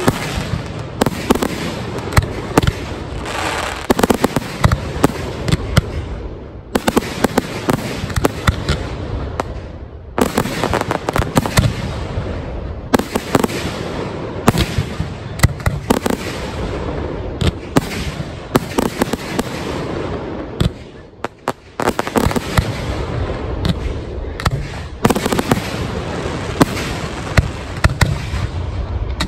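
Aerial firework shells bursting overhead in a rapid, near-continuous barrage: many sharp bangs and crackles overlapping, with a few brief lulls.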